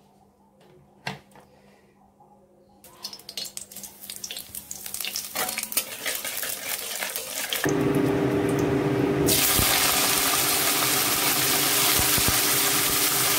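Cooking oil heating in an aluminium kadai, crackling and spitting more and more, then a sudden loud steady sizzle about eight seconds in as sliced bitter gourd goes into the hot oil to fry.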